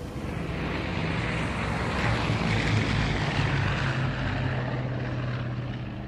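Aircraft engines as a fixed-wing plane flies low past, growing louder to a peak about halfway through and then fading away.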